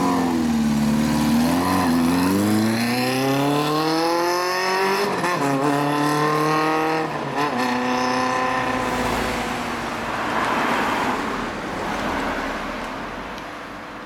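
Kawasaki Zephyr 400's air-cooled inline-four, through an RPM aftermarket exhaust, pulling away from a stop and accelerating. Its note rises through the gears, with shifts about five and seven seconds in, then fades as the bike rides off.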